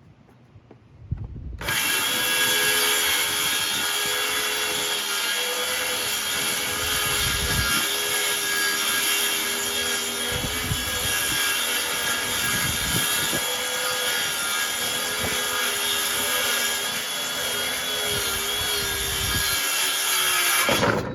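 Cordless power saw ripping a half-inch plywood sheet: the motor spins up about a second and a half in and runs steadily under load, its pitch wavering slightly, for nearly twenty seconds, then cuts off sharply near the end.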